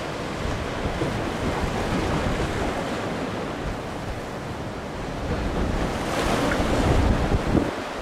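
Ocean surf breaking and washing over the reef, with strong gusty wind buffeting the microphone; it grows louder about six seconds in.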